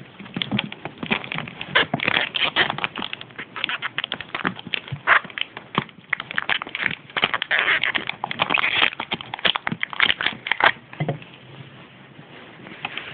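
Small plastic packaging crinkling and crackling as it is handled and torn open by hand, a dense run of irregular crackles that dies down near the end.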